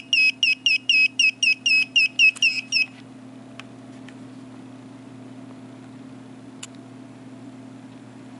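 Handheld electronic diamond tester beeping rapidly, about five high-pitched beeps a second, its signal for a diamond reading. The beeping stops about three seconds in, leaving a low steady hum.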